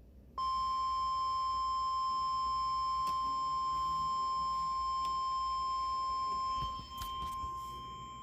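NOAA Weather Radio 1050 Hz warning alarm tone: a single steady beep that starts about half a second in and holds without a break. It signals that an alert message is about to be broadcast.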